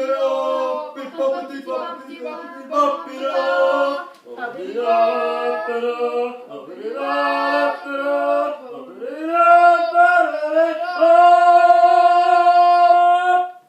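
Several voices singing together in harmony, in short phrases, ending on a long held chord that stops abruptly.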